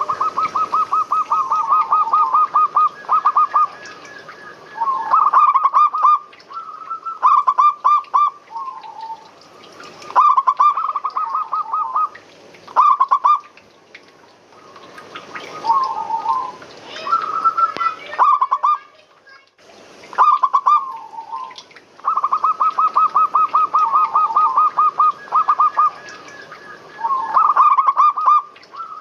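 Zebra doves (perkutut) cooing: phrase after phrase of quick, staccato notes near one pitch, each phrase one to three seconds long with short pauses between.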